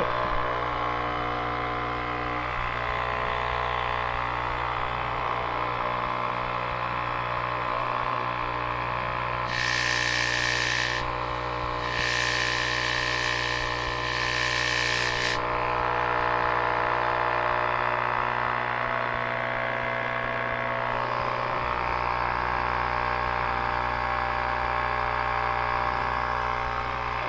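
Electric balloon pump running with a steady motor hum while balloons are inflated. Twice, about ten seconds in and again from about twelve to fifteen seconds, a louder hiss of air rises over the hum.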